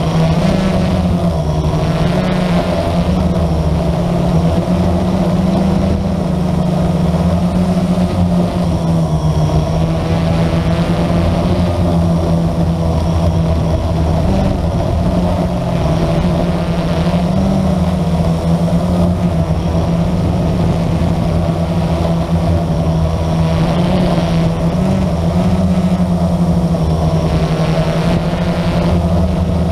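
Blade 350 QX quadcopter's four brushless motors and propellers buzzing steadily in flight, the pitch shifting slightly up and down as the throttle changes.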